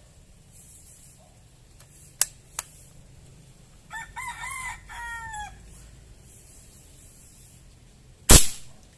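A rooster crows in the middle, after two sharp clicks. Near the end a CO2 airgun, charged with air from a PCP foot pump, fires a single loud shot.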